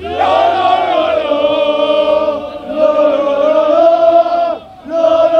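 Crowd of football supporters chanting together in long, drawn-out held notes, with a brief pause between phrases near the end.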